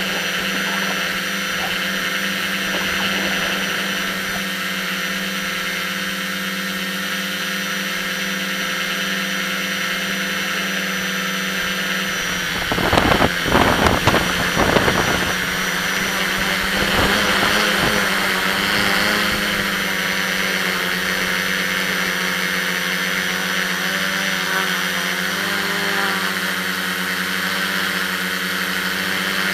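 Electric motors and propellers of a multirotor drone heard from a camera on the craft itself: a steady high whine made of many held tones. About halfway through, a few seconds of loud, rough rushes of noise cut across it.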